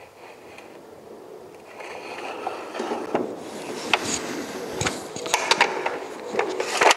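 A Gatling gun's Broadwell drum magazine being turned and handled by hand: scraping of metal on metal, with a series of sharp clicks and clanks in the second half, the loudest near the end.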